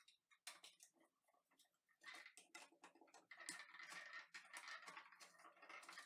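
Faint, irregular small clicks and scrapes of a screwdriver and fingers working the terminal screws of an old GFCI outlet to free its wires, growing busier partway through.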